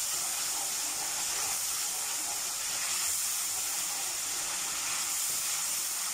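Sauce sizzling steadily in hot oil in a karahi over a high flame while it is stirred.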